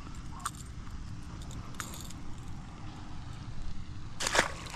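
A small bass thrown back into the pond, hitting the water with a short splash near the end, over a low steady rumble.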